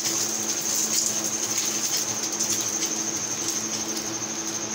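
Oil sizzling and crackling steadily under an egg-coated paratha frying on low heat in a frying pan, with a steady low hum underneath.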